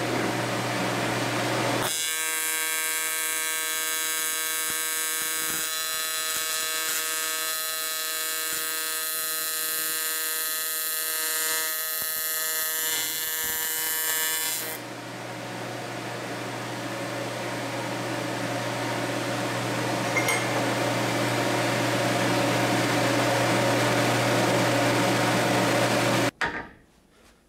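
AC TIG welding arc buzzing on a 7075 aluminum joint. A steady hum comes first, then the arc's loud even buzz takes over about two seconds in. About halfway through the buzz changes character and slowly grows louder, then cuts off sharply near the end.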